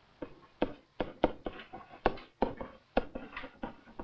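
Pen tapping and scraping on an interactive whiteboard while a chemical equation is handwritten: a string of short, sharp taps at uneven spacing, about two to three a second.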